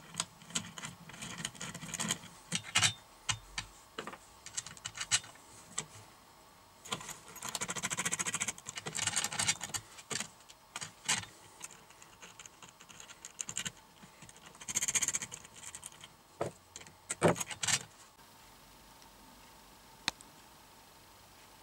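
Small metal hardware being handled and fitted by hand: a series of clicks and clinks from nuts, washers, bolts and a steel linkage rod going onto a crank arm. There are two longer rasping stretches, one about seven seconds in and a shorter one around fifteen seconds. The handling stops at about eighteen seconds, with one more click after that.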